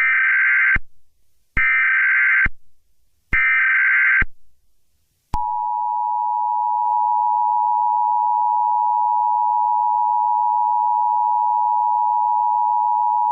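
Emergency Alert System tones: three short screechy bursts of SAME header data about a second apart, then the steady two-tone EAS attention signal, held for about eight seconds, announcing a new alert.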